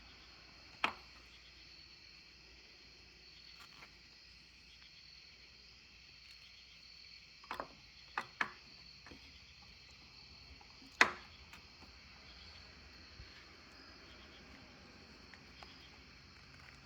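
A handful of short, sharp clicks and knocks from hand tools and small parts being handled during fuel-pump wiring work, the loudest about eleven seconds in, over a steady faint high hiss.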